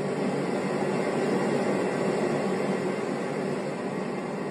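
Steady rushing roar of wind, swelling a little about a second in and easing slightly near the end.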